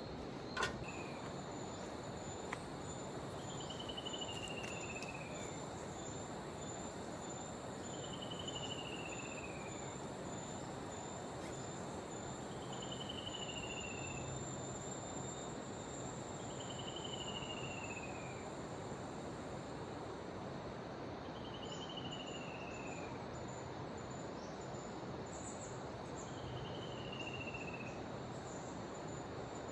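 Rainforest ambience: a steady high insect buzz, typical of crickets, under a bird's falling whistled call repeated six times, about every four and a half seconds. A single sharp click comes about half a second in.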